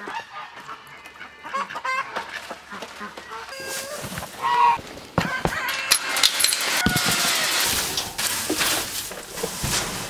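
Goats and poultry in a pen calling with several short calls in the first half. From about halfway there is a metal gate chain rattling as it is unhooked, a few sharp clanks, and hay rustling.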